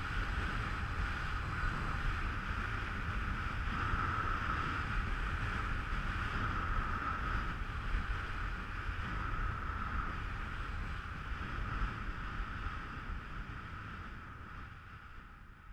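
Wind buffeting the microphone over a steady hiss of skis running on wind-packed snow at speed, fading away near the end.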